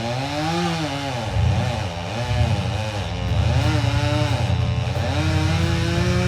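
Chainsaw engine revved up and down several times, its pitch rising and falling, then held at a steady high speed near the end.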